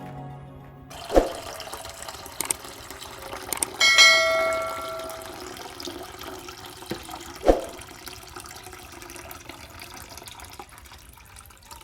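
Water from a homemade plastic-bottle Heron's fountain trickling and dripping steadily. A couple of sharp knocks come about a second in and again near the middle, and a short ringing tone sounds about four seconds in.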